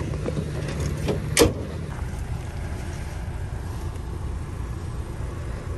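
A vehicle engine idling as a steady low rumble, with one sharp knock about a second and a half in.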